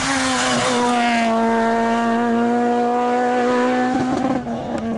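Renault Clio R3 rally car's engine held at high revs in one steady, loud note as the car comes through the stage. About four seconds in the note breaks and drops as the driver lifts off.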